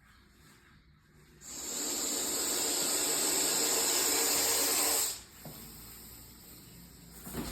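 Russell's viper hissing loudly in one long, even exhalation lasting about three and a half seconds: its defensive warning hiss at being disturbed.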